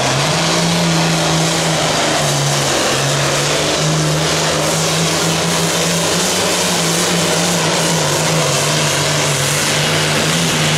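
International Harvester Classic Super Stock pulling tractor's turbocharged diesel engine running flat out under load while dragging the weight-transfer sled. The engine note is loud and steady, sagging briefly around two to three seconds in and then holding.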